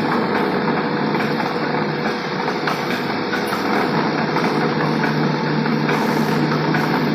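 Village grain mill running steadily: a large electric motor driving the milling machinery, with a constant hum under a dense, even clatter.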